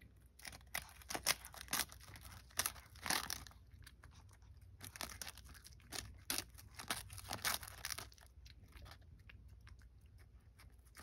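A cat biting and chewing a crisp sheet of seasoned nori (roasted seaweed) held to its mouth. Irregular crunching and tearing crackles come in bouts with short pauses.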